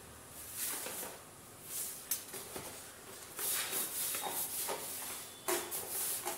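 Wrapping paper rustling as hands spread it and smooth it down over a cardboard box: a few short rustles at first, then more steady rubbing and crinkling from about halfway through.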